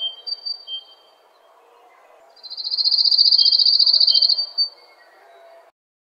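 Nature-sound mobile ringtone: short high chirps repeating at two pitches, then about two and a half seconds in a loud, fast high trill that lasts about two seconds and fades, with the sound cutting off just before the end.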